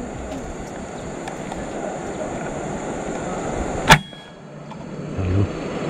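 A single shot from an FX Impact PCP air rifle: one sharp crack about four seconds in, over steady outdoor background noise.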